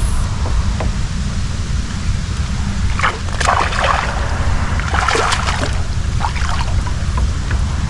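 Wind buffeting the microphone as a steady low rumble, with a few short noises about three and five seconds in.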